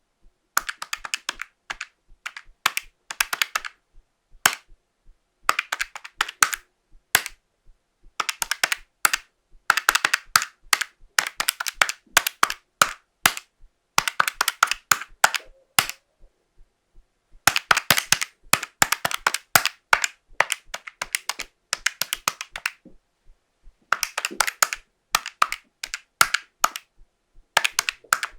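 Buttons of an old hardware pocket calculator being pressed in quick runs of clicks, with short pauses between the runs, the presses varying in force and speed.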